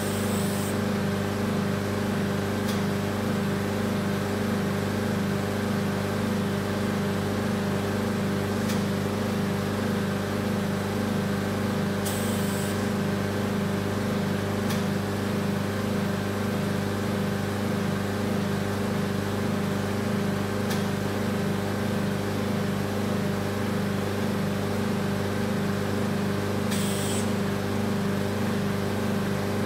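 Vacuum RF body-contouring machine running with a steady hum that pulses a couple of times a second as its suction works, with a brief high hiss of air three times.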